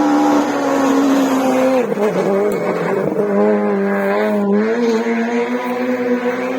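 Rally car engine at high revs on a special stage: the note holds high, drops sharply about two seconds in as the driver lifts or changes gear, then wavers and rises again as the car accelerates away.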